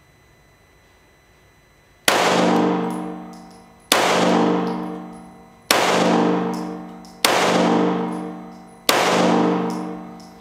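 Five shots from a Springfield XD9 9mm pistol, fired one at a time about one and a half to two seconds apart. Each shot is a sharp crack with a ringing tail that fades over more than a second.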